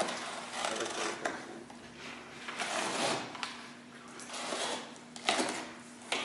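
Rustling and scraping of a small cardboard box and its packing being opened and handled, in several swells with a few sharp clicks.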